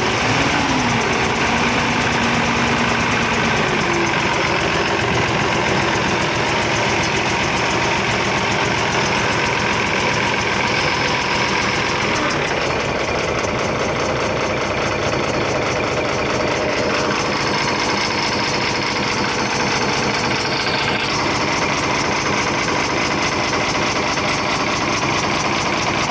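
Ashok Leyland Hino diesel truck engine idling with a rapid, steady chik-chik-chik ticking from the middle of the engine, which the mechanic traces to a cut head gasket.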